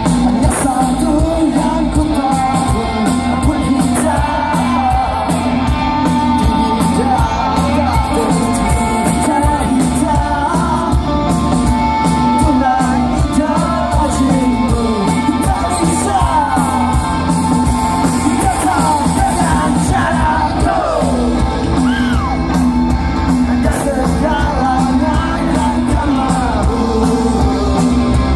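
Live rock band playing a song with a lead singer, heard loud over a large PA from within the audience, with shouts and whoops from the crowd mixed in.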